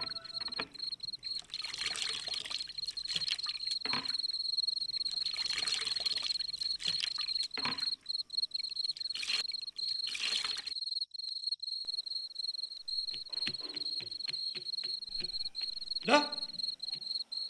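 Crickets chirping steadily with a high, even trill, with several surges of water splashing and pouring in the first half. Near the end, a single short rising squeak stands out as the loudest sound.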